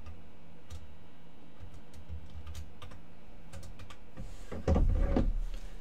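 Computer keyboard being typed on: a few scattered, separate keystrokes. A brief louder low sound comes about four and a half seconds in.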